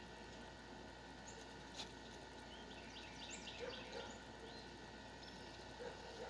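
Domestic geese pecking at scattered corn: faint quick clicks of bills on grain, with a brief run of them about three seconds in.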